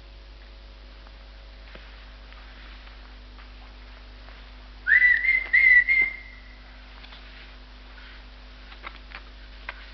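A loud, high whistle about five seconds in: it slides up, then holds one pitch in three quick pulses for about a second and a half. A few faint clicks follow near the end, over a steady low soundtrack hum.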